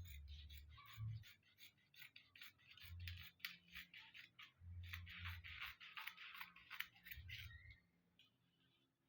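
Tailor's scissors cutting out a puff-sleeve piece: a faint, quick run of crisp snips and slicing strokes that stops near the end.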